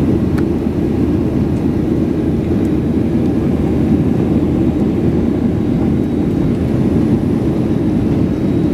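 Steady cabin noise of a Boeing 737-800 in its climb after takeoff, heard from a window seat over the wing: the CFM56-7B turbofans and rushing air make a loud, even low rumble.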